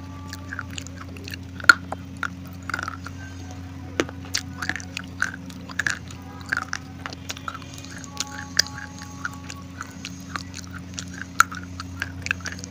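Baked edible clay (Punjab mitti) crunching as a person bites and chews pieces of it close to the microphone: irregular sharp crunches and crackles, several a second at times, over a steady low hum.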